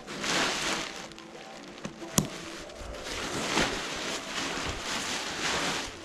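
Paraglider wing's nylon canopy fabric rustling and crinkling in repeated swells as hands press it into its bag and push the air out, with a single sharp click about two seconds in.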